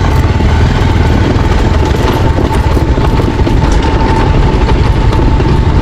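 Motorcycle riding at speed on a paved road, with wind rumbling heavily on the microphone over the engine and a faint steady whine.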